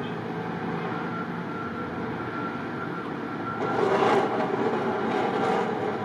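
Vehicle running in deep snow: a steady hum with a thin high whine, swelling louder for a couple of seconds from about three and a half seconds in.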